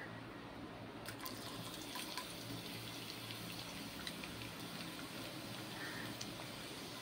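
Sliced small red onions frying in hot oil in a pan: a steady sizzle with scattered small pops and crackles.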